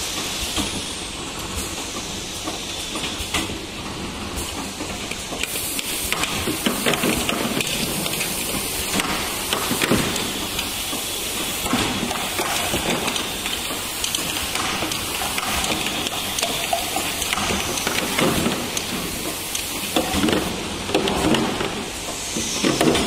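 Automatic jar-capping line running: a steady hiss with frequent irregular clicks and knocks from the machinery.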